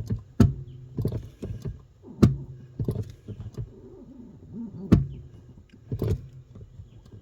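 A series of dull clunks from a car's new Bendix brake booster as the brake pedal is pressed with the engine off, about six in all, the loudest about two and five seconds in. The owner does not know what causes the clunk.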